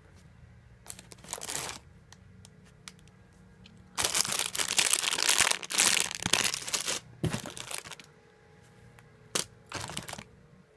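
Clear plastic bags around squishy toys crinkling and rustling as they are rummaged through and lifted out, in irregular bursts with the longest and loudest stretch from about four to seven seconds in. Underneath, a faint steady low drone of a lawn mower outside.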